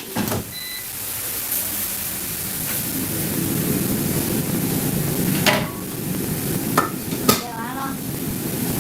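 Kitchen noise: a steady rush, as of frying or a burner, that grows a little louder partway through, with a few sharp utensil knocks in the second half and a brief snatch of voice near the end.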